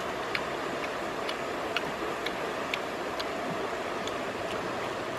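Small, crisp clicks about twice a second from grilled rat meat and small bones being pulled apart by hand and eaten, over a steady rushing background.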